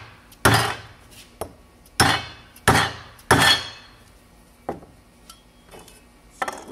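An orange soft-faced mallet striking the top of an upright aluminium extrusion, about five blows in the first four seconds, each with a short metallic ring, tapping the tube down into its plastic corner connector. Lighter clinks of aluminium tubes being handled follow near the end.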